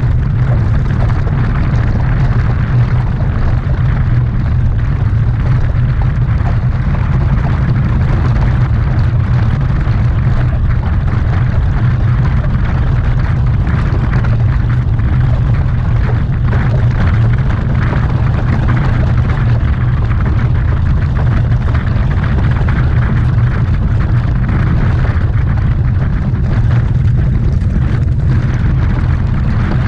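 Heavy, steady wind rumble buffeting the microphone of a camera carried by a harness-racing driver moving at speed.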